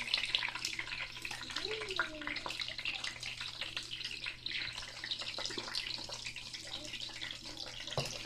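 Chicken frying in hot oil, a steady crackling sizzle full of small pops. A sharp click near the end.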